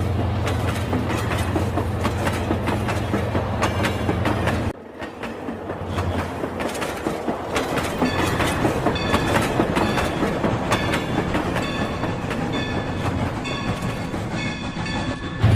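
Rail King battery-powered toy train running on its track: a steady low motor hum with dense rapid clicking from the wheels and track. About five seconds in the hum drops out suddenly and the clicking carries on, joined later by short repeated high tones.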